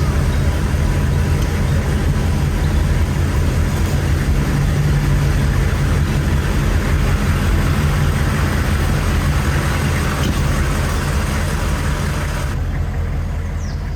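Hummer H1's engine idling steadily with a deep low hum and a rough clatter over it, the upper part cutting off and the whole fading out near the end.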